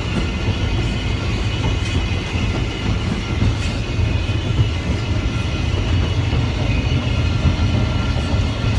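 Steady rumble and rattle inside a steam locomotive's cab as it coasts with the regulator almost shut, the wheels running on the rails.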